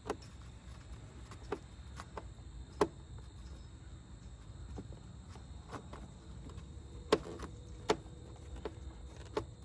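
Scattered sharp clicks and ticks of a screwdriver's Torx bit working the T15 screws that fasten the mass airflow sensor into the plastic intake tube as they are run down and tightened. The clicks come at uneven intervals, a few of them louder.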